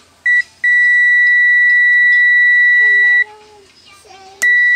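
ANENG digital multimeter's continuity buzzer beeping as the probe touches points on the board: a short beep, then a long steady beep of about two and a half seconds, then another short beep near the end. The beep signals a low-resistance path between the probe tips.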